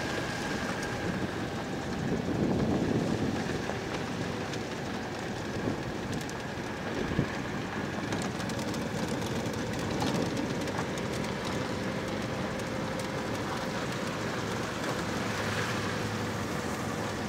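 Steady engine and road noise inside a car moving slowly along a dirt track, with light rattles and clicks.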